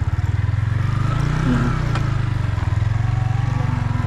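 Yamaha MT-15's single-cylinder engine running under way through its stock exhaust, its pulsing note holding fairly steady.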